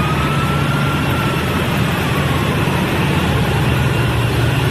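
Steady heavy-truck engine idling sound with a deep hum, from a toy mining truck.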